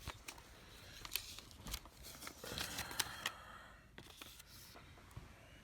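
Faint scattered clicks and light scrapes of hands handling a laptop.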